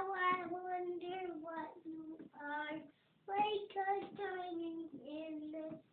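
A young boy singing, holding long notes in short phrases, with a brief pause about three seconds in.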